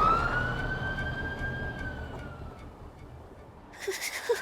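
A siren-like wailing tone that rises sharply, then slowly falls and fades away.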